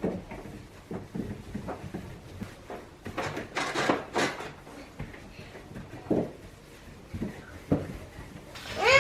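Light knocks and clatter of things being handled while a refrigerator is emptied and cleaned, with a couple of swishing rustles about three to four seconds in. A brief pitched sound rises and falls right at the end.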